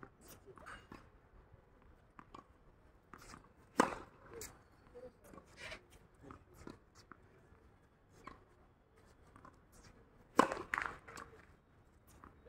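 Tennis balls struck by rackets and bouncing on a hard court: two sharp, loud pops about four seconds and ten seconds in, with lighter taps of bounces and footsteps between.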